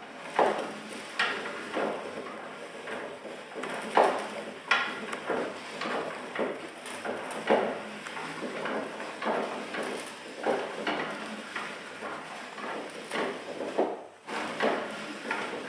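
Wooden gears and linkages of a hand-made kinetic automaton running, a steady wooden rattle with irregular knocks of wood on wood every second or so. It falls briefly quieter near the end.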